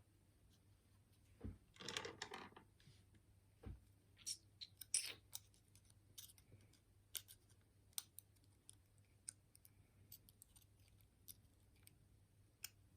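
Faint, scattered clicks and short scrapes of small metal lock parts being handled as a pin-tumbler lock is taken apart.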